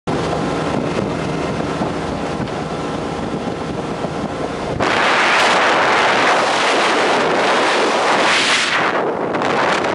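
2005 Sea Ray 200 Sundeck under way at cruising speed: a steady engine drone with water and hull noise. About halfway through it changes abruptly to loud wind rushing over the microphone.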